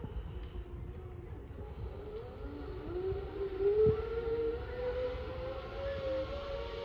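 Outdoor warning siren winding up: its tone rises over a second or two, then holds steady.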